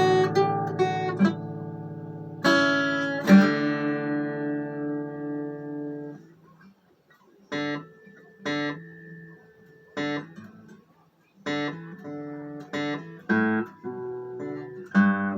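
Guitar played solo. A strummed chord rings and fades away over several seconds, then after a short pause single notes and small chords are plucked out about once a second, quickening near the end.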